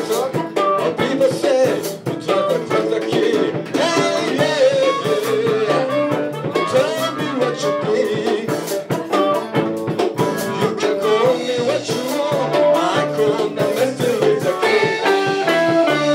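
A small live band playing a song: electric guitars over a drum kit.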